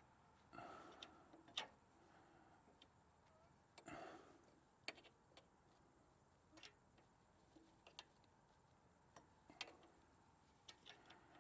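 Near silence broken by faint, irregular clicks and light metallic taps, with a couple of brief rustles: hand tools and air-line fittings being handled while the air horn line is adjusted.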